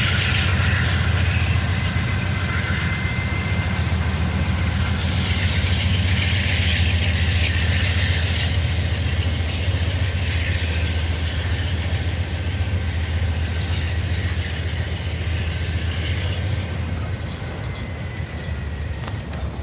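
A GE AC44CW diesel-electric locomotive's 16-cylinder engine runs with a steady low drone while the work train's cars roll along the rails. The sound eases off slightly near the end.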